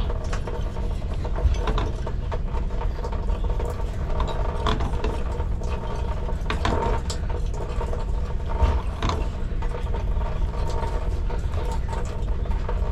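Pipe wrenches turning a threaded valve onto a pipe fitting while a second wrench holds back: irregular metallic clicks and scraping from the wrench jaws and threads, over a steady hum.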